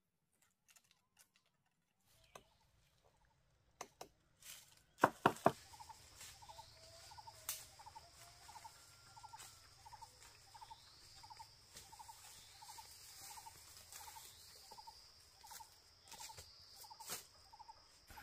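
A few sharp knocks, then a short animal call repeated evenly about twice a second, over a steady high hiss.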